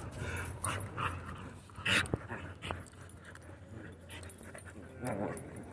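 Two dogs play-wrestling on the ground: scuffling with short dog vocal sounds, a louder one about two seconds in and another near the end.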